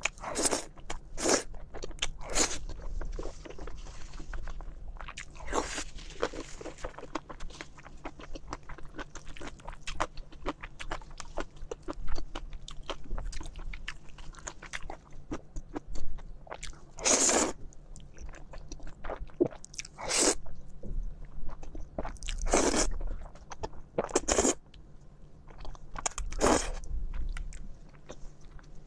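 Close-miked eating: a steady run of small wet chewing and mouth clicks as noodles and braised seafood are eaten, with several louder, longer bites and slurps spread through.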